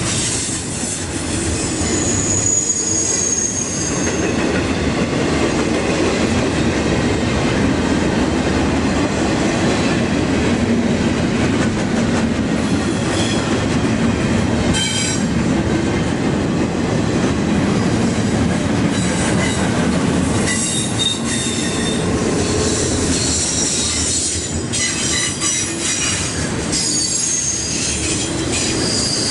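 Double-stack intermodal well cars rolling past close by: a steady rumble of steel wheels on rail, with high wheel squeal coming and going, strongest around twenty seconds in and near the end.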